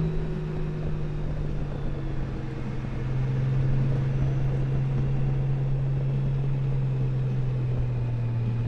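Touring motorcycle's engine running steadily under way on an uphill climb, with a low rush of wind on the microphone. The engine note sags slightly about a second in, then grows louder from about three seconds in.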